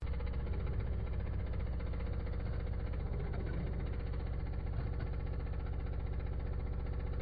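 Espresso machine pump running with a steady buzz.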